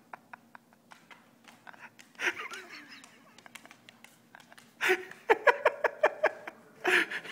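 Stifled laughter: a run of quick, breathy pitched pulses in the second half, with a shorter burst near the end. Scattered soft clicks and a brief voice sound come earlier.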